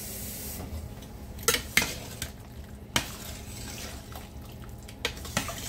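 Metal ladle stirring a thick stew in a stainless steel pot, clinking sharply against the pot's side about five times.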